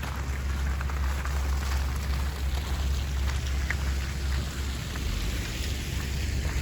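Winter street ambience dominated by wind rumbling on the microphone, over a steady hiss with scattered small crackles.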